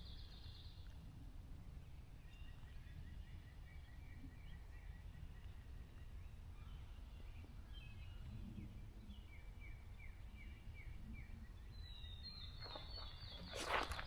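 Forest songbirds singing faintly, in short phrases of quick repeated notes: one at the start, several through the middle and another near the end. They sound over a low steady rumble, and footsteps on the trail start up again right at the end.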